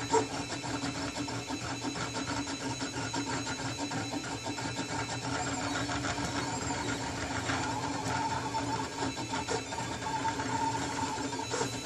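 Printrbot Simple Metal 3D printer mid-print, its stepper motors whining and ticking through rapid short moves as the nozzle traces small round parts. The whine shifts in pitch as the moves change, over a steady hum, with one sharper knock right at the start.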